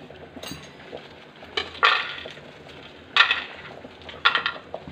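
Several short clinks and clatters of kitchen utensils and dishes being handled, the loudest about three seconds in.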